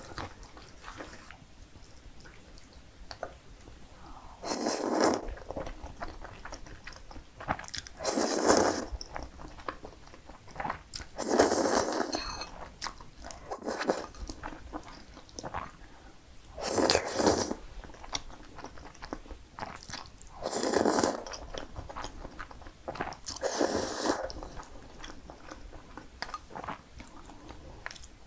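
Close-miked eating of cream pasta: six loud slurps of noodles, each lasting about a second and a few seconds apart, with soft chewing and mouth clicks in between.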